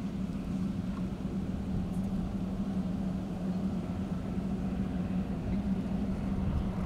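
A steady low mechanical hum, like an engine running at an even speed, over a low rumble.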